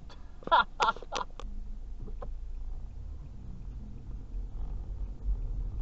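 A person's voice in four short, loud bursts about half a second in, over the low drone of a car driving.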